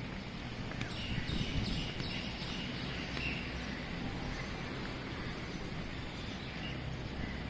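Outdoor ambience: a steady low rumble, with small birds chirping between about one and three and a half seconds in.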